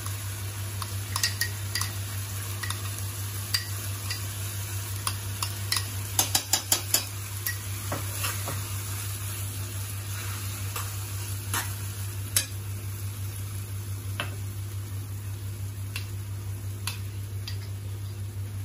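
Metal spoon scraping and clinking against a ceramic bowl and a stainless-steel kadhai as thick masala gravy is stirred, over a steady sizzle of the gravy cooking. A quick run of clinks comes about six seconds in, and a single sharp clink about twelve seconds in.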